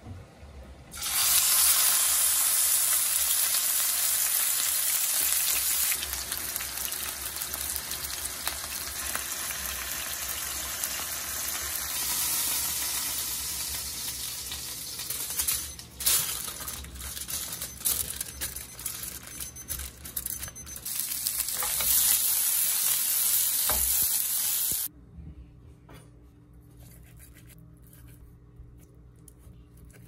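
Steak sizzling loudly in a hot pan, starting about a second in, with scattered utensil clicks midway, and cutting off abruptly about five seconds before the end. After that come quiet knife taps on a wooden cutting board as the steak is sliced.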